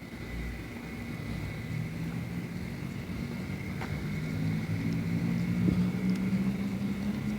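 A motor vehicle's engine running with a steady low hum that slowly grows louder.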